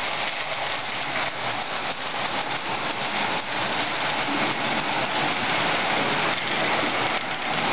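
O and S gauge model trains running on metal three-rail track: a steady whirring and rattling of motors and wheels.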